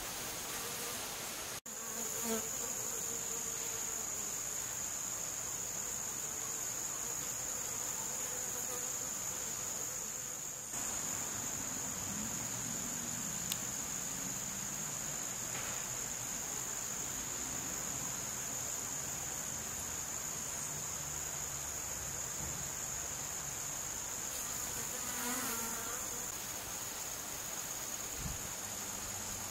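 A steady, high-pitched insect chorus runs throughout, with the low buzz of honey bees' wings coming up briefly about two seconds in and again near twenty-five seconds. The sound cuts out for an instant about a second and a half in.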